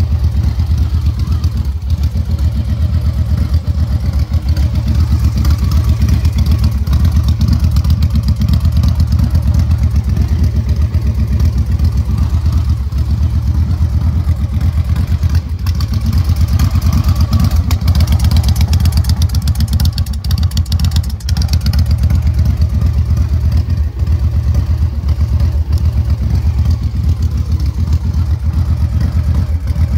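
2005 Victory Kingpin's V-twin engine idling steadily.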